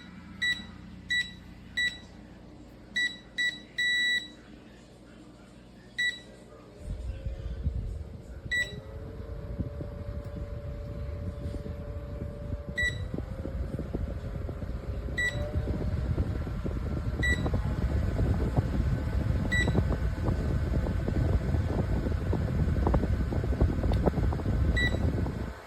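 OUTTPLY portable camping fan: short electronic beeps as its buttons are pressed, several in quick succession, then one every couple of seconds. From about seven seconds in, a motor whir steps up in pitch with each beep as the speed is raised, over a low rushing rumble of air that grows louder.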